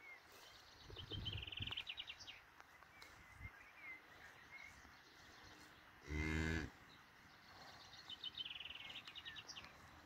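A dairy cow gives one short, low moo about six seconds in, lasting just over half a second. A small bird trills twice in the background, about a second in and again near the end.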